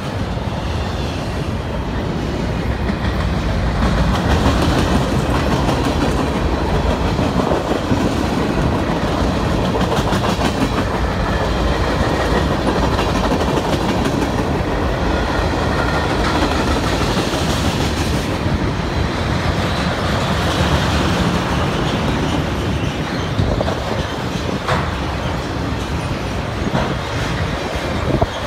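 CSX mixed freight train's cars rolling past: a steady rumble with the clickety-clack of steel wheels over the rail joints.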